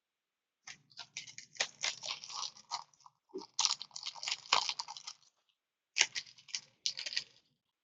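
Crinkling and rustling of plastic card packaging being handled, in a long run of crackles through the first five seconds and a shorter run about six seconds in.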